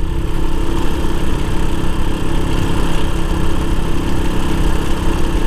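1986 Honda XL 125's single-cylinder four-stroke engine running at a steady pace while the bike is ridden over corrugated gravel road, under a steady rush of wind and road noise.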